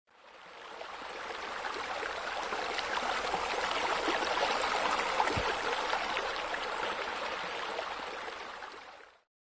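Steady rush of running water, like a stream or a spa spilling into a pool, fading in at the start and fading out near the end.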